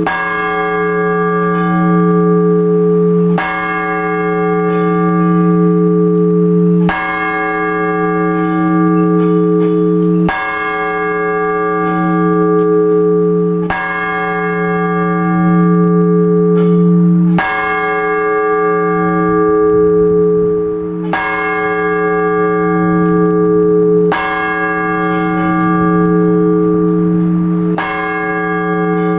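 A single large Orthodox church bell tolled in slow, even strokes about every three and a half seconds, each ringing on with a deep hum into the next. This is blagovest, the measured single-bell ringing that announces the start of a service.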